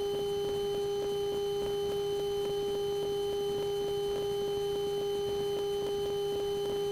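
Piper Lance single-engine piston aircraft in cruise, its engine noise heard as a muted, unbroken hum with a constant tone and a faint quick pulsing.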